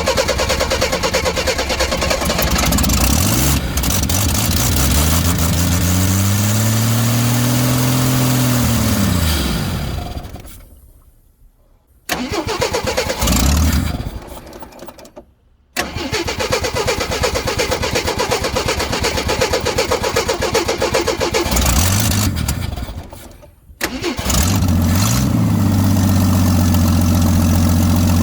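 1979 Jeep J10's AMC 258 inline-six cranked on the starter again and again, now drawing fuel from its own tank: it catches and revs briefly but dies twice, then catches near the end and settles into a steady idle.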